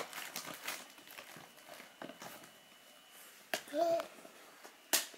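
A child's short hummed vocal sound, pitched and rising then falling, about four seconds in, with a few light clicks around it in an otherwise quiet room.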